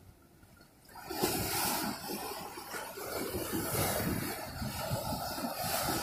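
Ocean surf: after a quiet first second, the rush of a wave breaking and washing in begins suddenly and runs on with a low, churning rumble.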